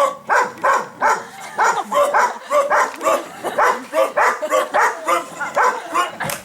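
A person's voice imitating a small dog's yapping: short, pitched yelps, about three a second, kept up throughout.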